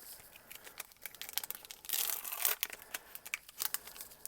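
A Pokémon TCG booster pack's crinkly foil wrapper being handled and torn open: a run of sharp crackles, with a denser tearing rush about two seconds in.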